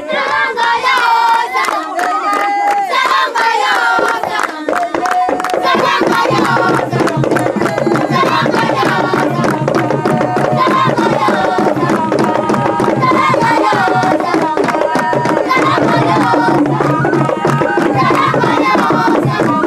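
A group of voices singing and chanting together over fast, continuous hand drumming and percussion.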